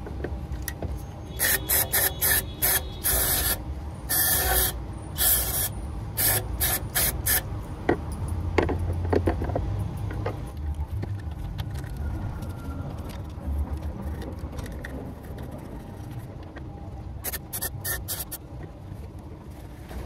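Aerosol throttle body cleaner sprayed into a throttle body bore in a quick series of short hissing bursts, about a dozen over the first seven seconds. After that come quieter scrubbing and rubbing sounds as the bore is worked clean.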